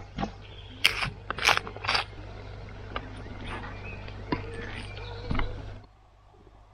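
A series of sharp clicks and knocks, bunched about a second in and again near two seconds, with fainter scattered ticks after them over a steady low hum. The hum and knocks cut off abruptly near the end.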